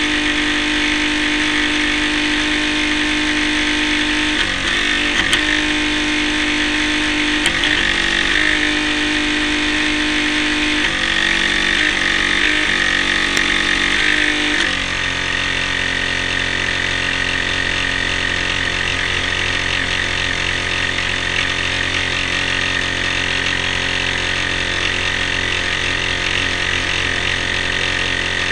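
Radio-controlled boat's motor running, heard from a camera on board, with a steady high whine over a lower engine note. The lower note dips briefly several times in the first half, then settles lower and steadier about halfway through.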